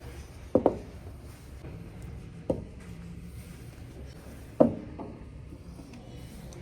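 A few sharp, separate knocks of hard parts or tools being handled, a quick double knock near the start and single ones later, over a steady low hum.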